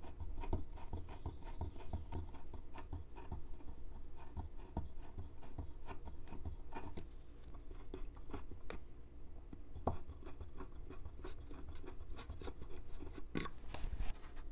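A 1/8 inch drill bit in a hand-turned pin vise, scratching as it is twisted into the wooden engine mount to start the screw holes: a faint, irregular run of small clicks and scrapes.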